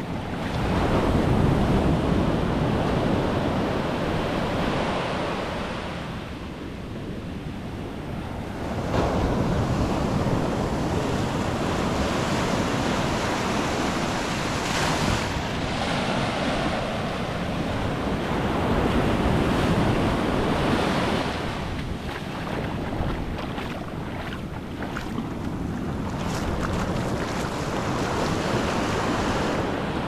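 Small ocean waves breaking at the shore and foam washing up the sand, the surf swelling and easing every several seconds. Wind buffets the microphone, adding a low rumble.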